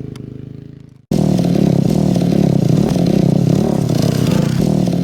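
A dirt bike engine fading away, then after a sudden break about a second in, a dirt bike engine running loud with a wavering pitch.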